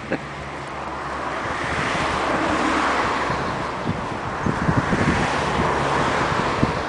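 Bayliner cabin cruiser motoring slowly past: a steady engine hum under a swelling hiss of water and wind, with wind buffeting the microphone from about four and a half seconds in.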